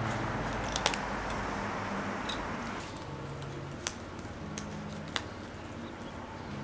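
Small handling sounds of hands working thin line around a cork-bark mount: soft rustling with a few sharp ticks. Quiet background music fades out in the first couple of seconds.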